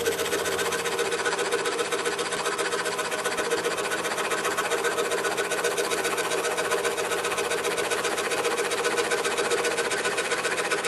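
DeWalt scroll saw running steadily, its blade stroking up and down fast while cutting through a thin wooden workpiece.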